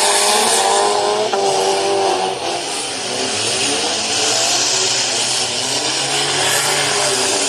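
Several race car engines running together, revving up and down in overlapping pitches, loudest in the first two seconds or so.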